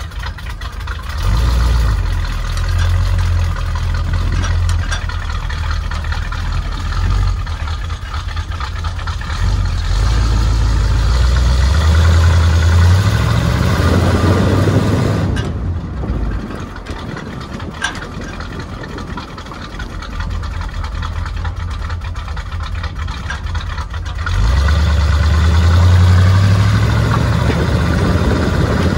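1965 International pickup's engine and exhaust on the move, the low engine note climbing under acceleration several times and easing off, with a quieter stretch in the middle.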